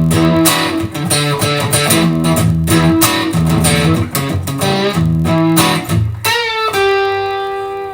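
Theme music with a steady beat, ending about six seconds in on a long held chord that rings out and fades.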